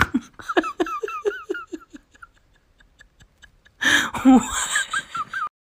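A woman laughing in a quick run of short 'ha-ha' bursts, then after a pause a louder outburst of voice and laughter near the end that cuts off abruptly.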